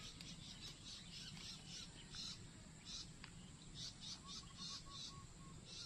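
Faint wildlife chirping outdoors: short high chirps repeated irregularly, with a brief run of about eight soft, evenly spaced notes a little past four seconds in, over a constant high whine.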